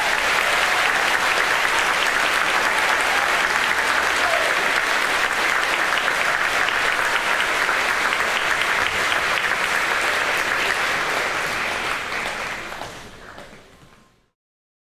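Large audience applauding in a steady, dense clatter of clapping that fades out about two seconds before the end.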